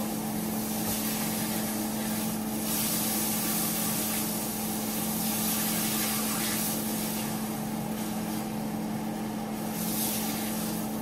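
Tortillas for enchiladas frying in a very hot pan: a steady sizzle and hiss that swells several times, over a constant low hum.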